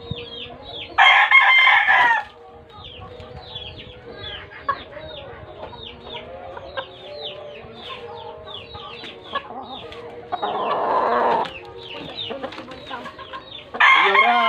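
Roosters crowing three times: about a second in, again about ten seconds in, and once more near the end. Each crow lasts about a second. Under them runs a constant rapid, high-pitched chirping.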